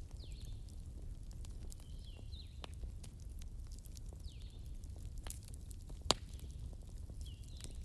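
Wood fire crackling: scattered small pops over a steady low rumble, with one sharp, loud pop about six seconds in. A bird's short falling chirps repeat in the background every couple of seconds.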